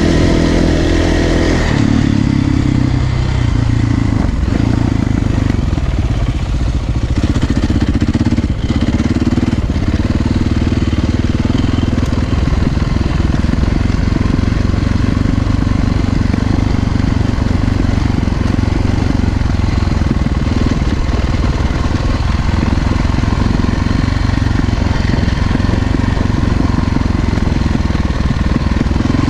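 Trail motorcycle engine running as the bike is ridden over grassy hill country. The engine note dips briefly several times in the first ten seconds, then runs steadily.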